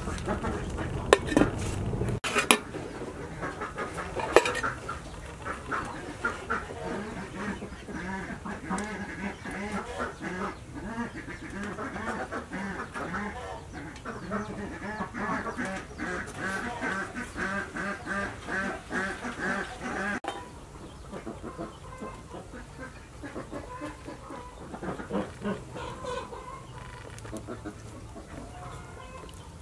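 Domestic poultry, ducks and chickens, calling again and again, with a long run of rapid calls from about 8 to 20 seconds in. A few sharp clicks sound in the first five seconds.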